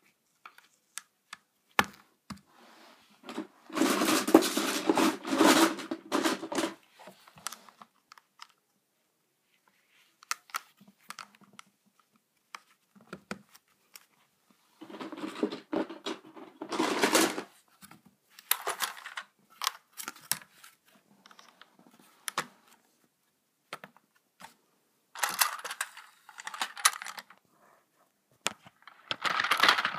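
Plastic Plarail toy train track pieces being handled: scattered clicks and several bursts of rattling and scraping a few seconds long, the loudest about four to seven seconds in and again about fifteen to seventeen seconds in.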